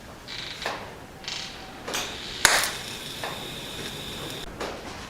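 Hammer blows on a sheet-steel repair panel, about five separate strikes. The loudest comes about two and a half seconds in and leaves the metal ringing for about two seconds.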